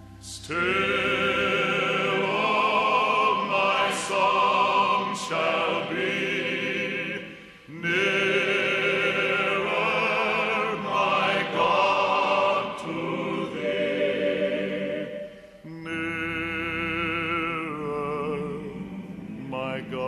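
Operatic singing with a wide vibrato on long held notes, in phrases broken by two short pauses, about a third and two thirds of the way through.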